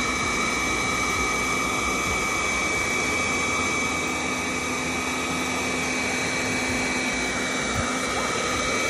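Hand-held hair dryer running steadily, blowing air onto a Bichon puppy's coat: an even rush of air with a steady high-pitched whine.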